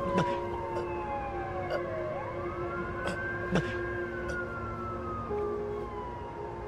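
Emergency-vehicle siren wailing slowly: its pitch slides down, swings back up about two seconds in, and falls again. A few sharp clicks sound over it, the loudest about three and a half seconds in.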